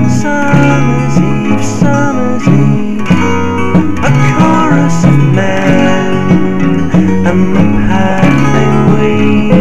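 Instrumental break in a lo-fi home-recorded song: acoustic and semi-acoustic guitars picking over a bass guitar line that steps between notes, with a light paintbrush beat on a drum.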